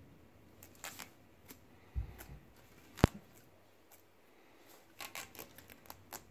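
Handling noise from wrapping a tennis overgrip around the butt end of a hockey stick to build the knob: scattered soft clicks and rustles, a dull knock about two seconds in and a sharp click about a second later, the loudest sound.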